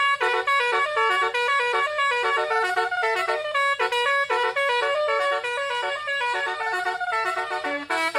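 Twelve-note basuri musical horn on a car, playing a quick melody of short notes that step up and down in pitch.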